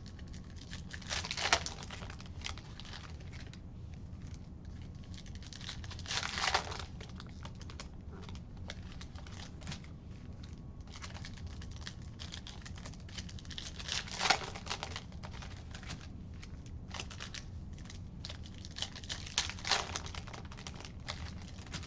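Hands crinkling and tearing at plastic-foil trading-card pack wrappers while handling cards, with small clicks and shuffles between several louder crinkles a few seconds apart.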